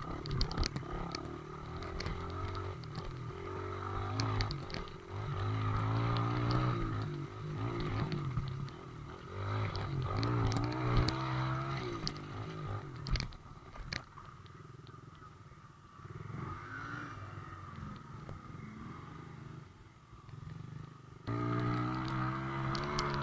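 Off-road vehicle engine running on a trail, its pitch rising and falling as the throttle opens and closes, with occasional sharp knocks.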